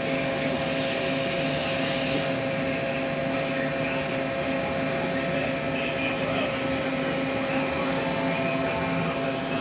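Tool change by a 3R WorkMaster robot on an EDM machine: a steady machine hum with two held tones, and a hiss of compressed air that cuts off about two seconds in, as the pneumatic chuck lets go of the electrode holder.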